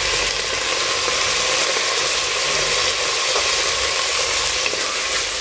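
Chopped tomatoes and onions sizzling in hot oil in a pressure cooker, a steady frying hiss.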